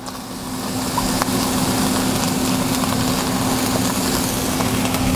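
Ground bison and freshly added diced carrots and onions sizzling in a hot skillet. The sizzle builds over the first second and then holds steady over a low hum.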